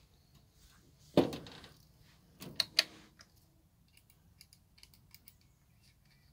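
Clicks and knocks from handling a Vonyx megaphone and its handheld microphone: one knock about a second in that rings briefly, a few sharp clicks about a second later, then light ticking. The megaphone itself gives no output, though fitted with fresh batteries.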